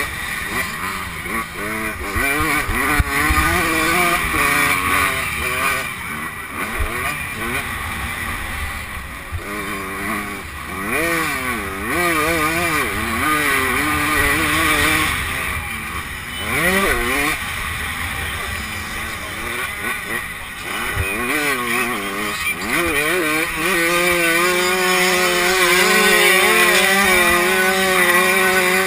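85cc two-stroke motocross bike engine, heard from the rider's helmet camera, revving up and down as the rider accelerates, shifts and backs off through the corners, then holding high revs down a straight near the end. Wind buffets the microphone underneath.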